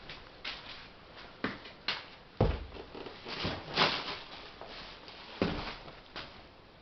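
Scattered knocks and clicks in a small room, with a few heavier low thumps spaced a second or more apart.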